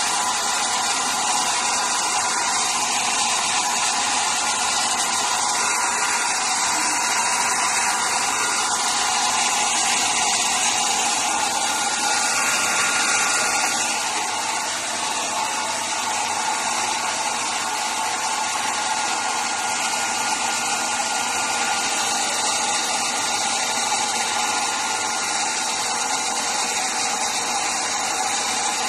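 Small handheld hair dryer running steadily: a constant rush of blown air with a steady motor whine, a little quieter from about halfway through.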